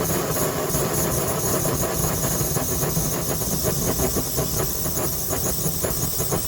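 Gas torch burner flame burning off the gas left in the hose after the bottle has been turned off: a steady hiss that breaks into a rapid flutter about halfway through as the pressure drops.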